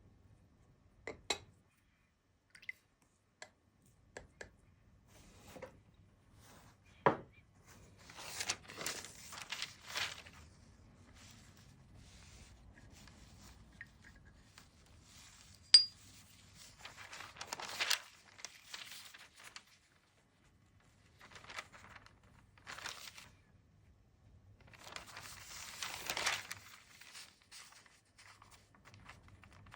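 Paper being handled and rustling in three spells, with a few sharp clicks of small hard objects set down on a desk.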